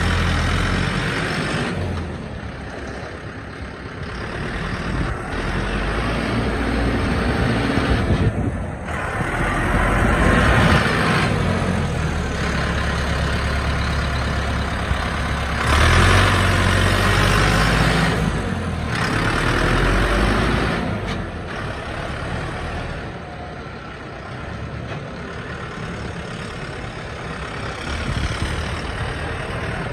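2023 Taiyue 804 4WD 80 hp tractor's diesel engine running as the tractor is driven about. It grows louder twice as it passes close, about ten and sixteen seconds in, then settles lower as it moves away near the end.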